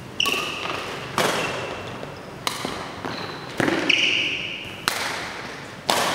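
Badminton rally: a shuttlecock struck back and forth by racquets, about once a second, each hit a sharp crack that echoes in a large hall. Short high squeaks from players' shoes on the court floor come between the hits.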